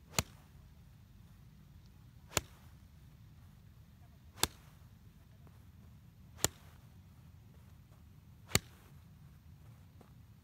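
Golf iron striking balls off an artificial-turf hitting mat in quick succession: five sharp clicks about two seconds apart.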